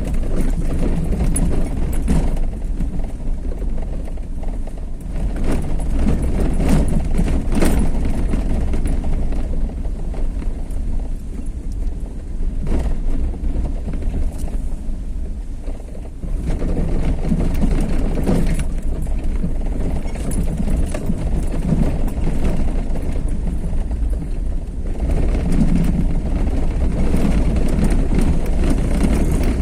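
Vehicle travelling along a road, heard from on board: a steady low engine and road rumble that swells and eases. It dips about halfway through, then grows louder again.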